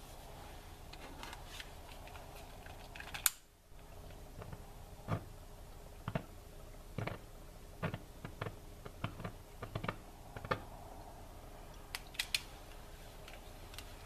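Hydrogen-oxygen (HHO, Brown's gas) bubbles in the foam on top of a bubbler bottle being lit, going off as a scattered run of short sharp pops, about a dozen over five seconds. A single louder crack comes first, and two or three more pops follow near the end.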